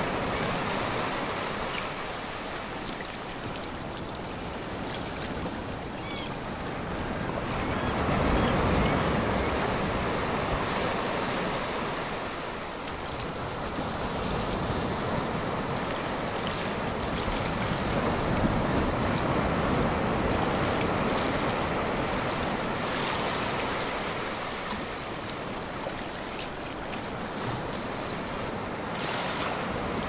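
Ocean surf: waves breaking and washing up on a shore, swelling and easing in slow surges, loudest about eight seconds in.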